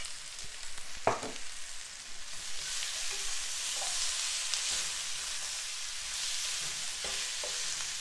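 Sliced bell peppers, okra, tomato and onion sizzling in a hot frying pan as they are stirred with a spatula. A single knock about a second in, then a steady frying sizzle that builds and holds.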